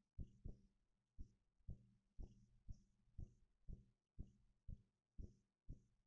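Faint, steady low thumping like a drum or heartbeat, about two beats a second, some coming as close pairs, over a low steady hum.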